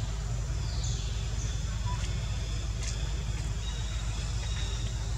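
Outdoor background noise: a steady low rumble, with two high whistles falling in pitch in the first second and a half and a couple of faint ticks.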